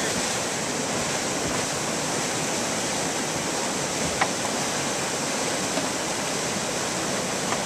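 Whitewater of a river surf wave rushing steadily, a constant hiss of churning foam. One short sharp click sounds a little past halfway.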